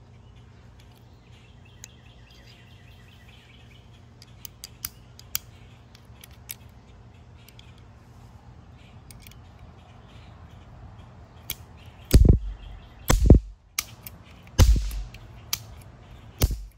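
Kilgore Circle K Trooper toy cap pistol firing paper roll caps: four sharp cracks in the last five seconds, with lighter clicks of the hammer between them. Earlier come small clicks as the cap roll is loaded and the frame snapped shut.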